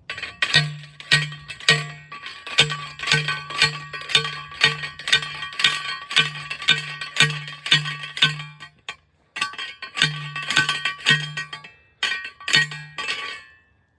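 Manual post driver hammering a steel T-post into the ground, about two strikes a second, each hit ringing metallically with a low thud. It pauses briefly twice before stopping.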